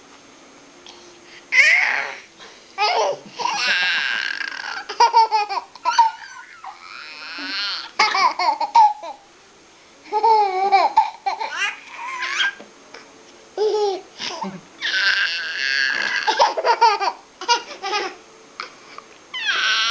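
A young child laughing in bursts, with high, gliding vocal noises and babbling in between, laughing at his own noises.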